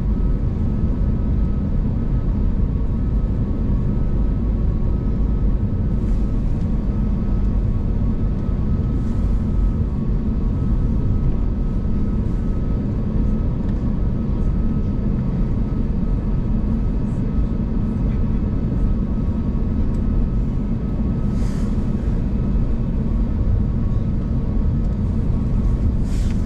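Cabin noise inside a taxiing Airbus A321neo: a steady low rumble of its Pratt & Whitney geared turbofans at taxi power and of air and airframe, with a faint steady whine. A few faint clicks or rattles sound above it.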